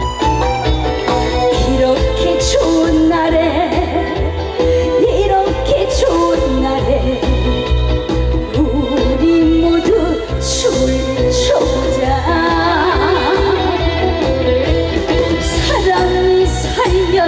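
Live trot song: a woman singing a wavering, ornamented melody over a band with a steady pulsing beat.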